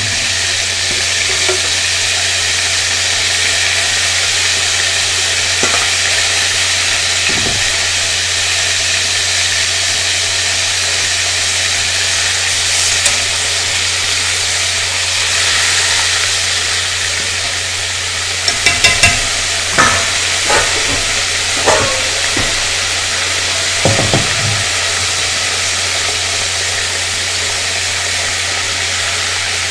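Starch-coated crab pieces deep-frying in hot oil, with a steady sizzle from the moisture trapped in the crab shell. A cluster of sharp metal clinks, the loudest sounds here, comes about two-thirds of the way through as a utensil knocks against the pot.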